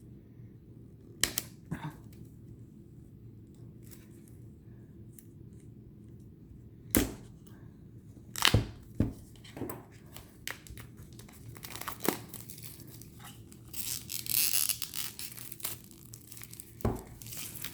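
Plastic shrink wrap being cut and torn off a boxed tarot deck: scattered crinkles and sharp snaps, with a longer run of crinkling about fourteen seconds in.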